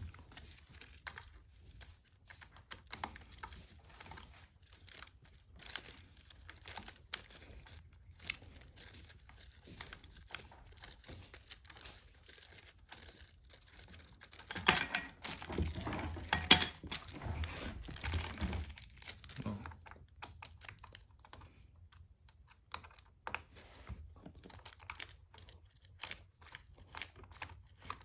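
Light scattered clicks and knocks of screws and plastic tool parts being handled and screwed together by hand, with a louder stretch of rustling and clattering about halfway through.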